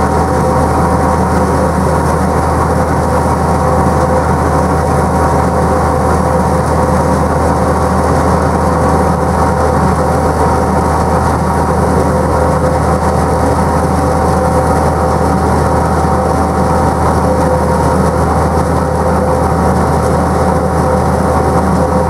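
Wakely 1240 mobile roller mill crimping maize, driven by the hitched tractor: a loud, even mechanical drone with a few steady whining tones over a low hum.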